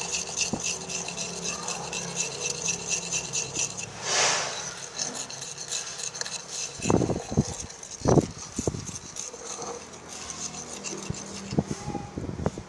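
Spoon stirring laundry detergent powder into water in a container, making rapid scraping, clinking strokes as the powder dissolves into a slime activator. The stirring gives way to a few louder knocks about two-thirds of the way through.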